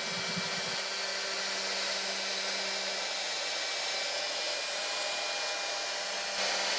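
CNC router running: the spindle cuts wood with a quarter-inch bit while dust extraction draws through the brush shoe. It gives a steady hiss with a thin, steady whine, a little louder near the end.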